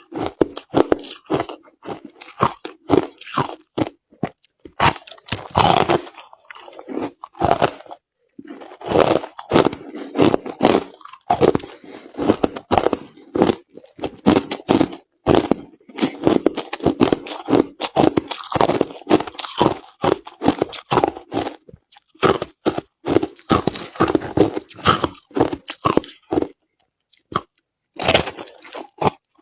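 Crushed ice being chewed close to the microphone: rapid, irregular loud crunches, several a second, with a few short pauses between mouthfuls.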